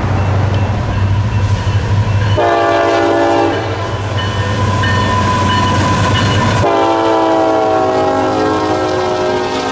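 Diesel freight locomotive's air horn blowing a long chord over the low rumble of the engines and the clatter of the train. About two-thirds of the way through, the horn's pitch drops slightly as the locomotive passes.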